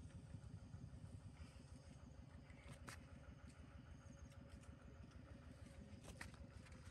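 Near silence: a faint low rumble with a faint steady hum, broken by a couple of soft clicks.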